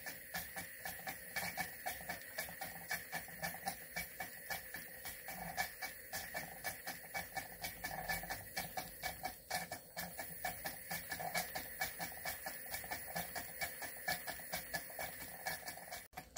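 Cotswold Cirrus model steam beam engine running, giving a rapid, even ticking beat of about five strokes a second over a faint steady whine. The sound briefly cuts out near the end.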